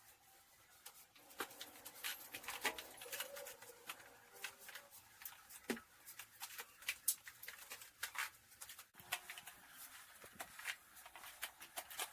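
Dishes and utensils being washed by hand: irregular light clinks and clatters of crockery and metal, with a brief squeak about three seconds in.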